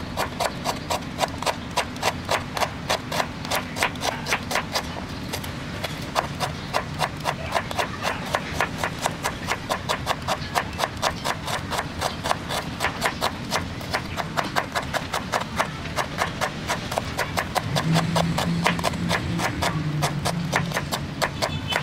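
Kitchen knife slicing a red onion on a bamboo cutting board, the blade knocking on the wood in a steady rhythm of about three cuts a second.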